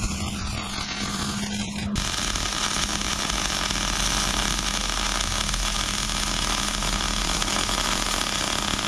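MIG welding arc crackling steadily while a bead is laid on a steel car frame.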